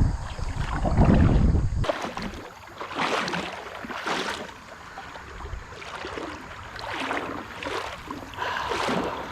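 Kayak paddle strokes swishing and splashing in the river, about one a second. For the first two seconds wind buffets the microphone, then stops abruptly.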